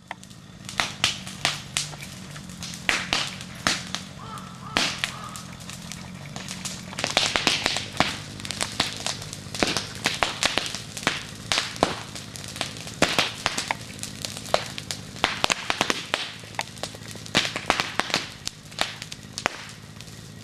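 Wood fire crackling: irregular sharp snaps and pops, several a second, over a steady low hiss of burning.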